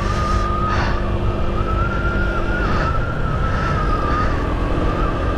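Motor scooter riding at steady speed: wind rumble on the helmet-mounted microphone over the engine's drone, with a thin, steady, high whine that wavers slightly in pitch.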